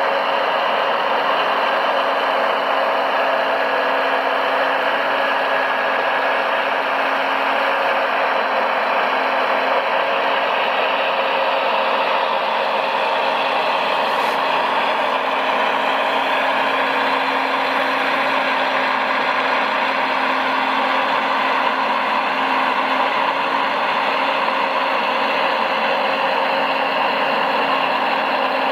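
Radio-controlled construction vehicles running: a steady mechanical whine and hum of motors and gearing that holds at a constant level throughout.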